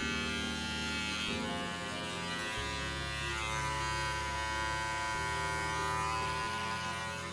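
Small electric pet trimmer running with a steady buzz while it trims tear-stained fur beside a puppy's eye, its tone shifting slightly a few times as it touches the fur.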